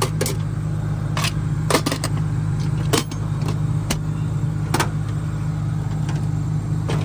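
Combine harvester engine running steadily as the machine is driven, with sharp clicks and rattles at irregular intervals, about one or two a second.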